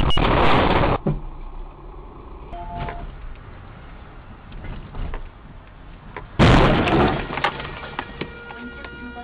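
Car collision heard from inside the car: a sudden loud crash of impact with breaking glass about six seconds in, dying away within a second, followed by a few sharp clicks. A loud burst of noise fills the first second and cuts off abruptly.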